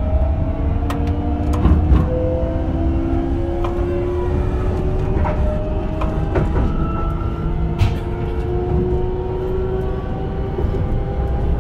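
Toshiba GTO-VVVF inverter and traction motors of a JR Shikoku 8000 series train whining in several slowly rising tones as it accelerates, over the low rumble of the running gear heard from inside the car. Occasional sharp clicks.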